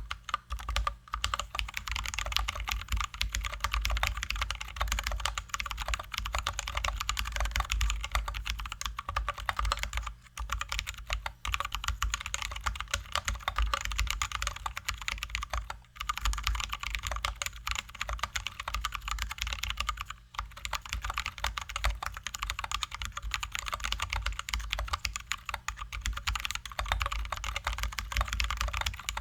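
Continuous fast typing on a Drop ALT high-profile mechanical keyboard with lubed, filmed Zealios V2 67g tactile switches and XDA-profile keycaps: a dense stream of keystroke clacks with a low thud under each press, with brief pauses about ten, sixteen and twenty seconds in.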